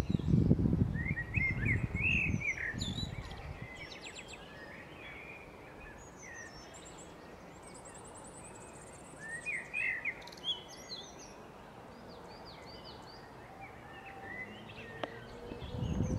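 Woodland birdsong: several songbirds singing short warbled phrases about a second in and again about ten seconds in, with a series of high, falling whistles near the end. A low rumble fades out over the first few seconds and comes back near the end.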